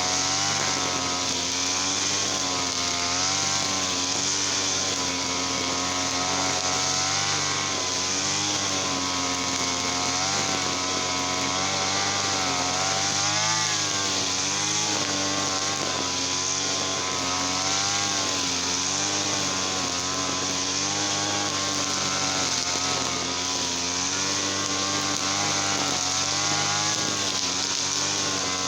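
Small two-stroke petrol brush cutter engine (TL33 type) running continuously, its pitch rising and falling as the throttle and cutting load vary.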